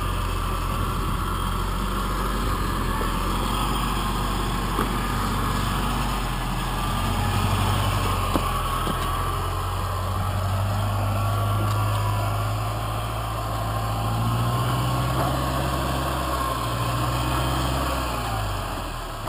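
Rock-crawler buggy's engine running steadily as it crawls over boulders, a continuous low drone whose note and level shift a little now and then, with a faint whine above it.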